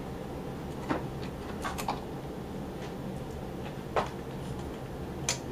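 A few light clicks and taps of a screwdriver working the Phillips screws on a 1940s Speed Queen wringer's gear housing, over a steady low hum.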